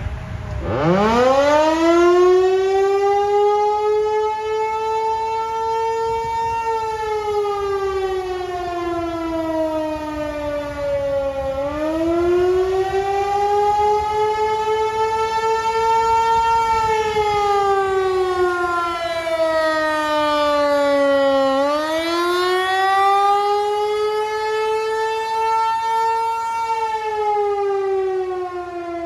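508 outdoor tornado warning siren starting up: its tone winds up steeply in the first second or two, then wails, its pitch climbing and sinking in slow cycles roughly every ten seconds.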